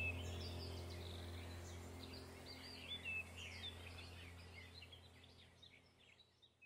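Birds chirping and singing in short, quick calls over a steady low hum, the whole sound fading out gradually.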